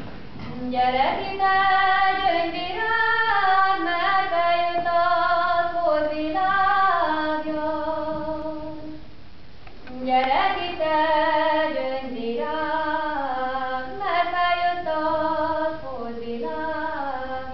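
A single female voice singing unaccompanied: a slow melody with sliding ornaments, in two long phrases, the second starting about ten seconds in.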